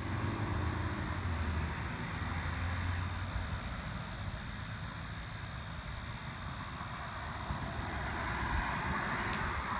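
A distant engine drone, low and steady, with a rushing noise that swells near the end; crickets trill steadily underneath.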